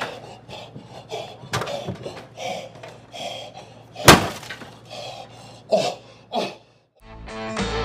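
A single loud crash about four seconds in, among shorter scattered knocks and noises. Guitar music starts near the end.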